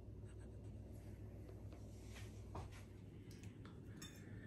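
Near silence: a faint steady low room hum with a few light, scattered clicks and scratches.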